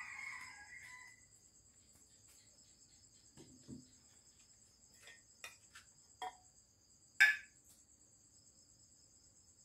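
Steady high-pitched chirring of crickets throughout, with a few light clicks and knocks and one sharp clink about seven seconds in as a metal spoon and a ceramic bowl are handled at a glass jar.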